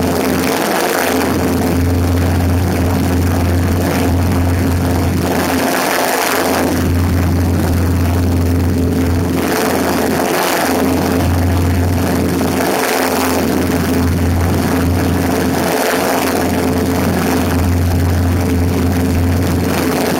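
Cessna 150 in cruise flight, its Continental O-200 four-cylinder engine and two-blade propeller droning steadily. Heavy wind rushes over the microphone on the wing strut, swelling and easing every few seconds.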